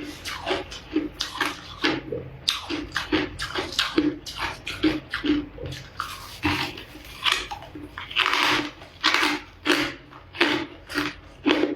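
Ice being crunched between the teeth: a continuous run of sharp crunches, a few a second, with a longer crunch about eight seconds in.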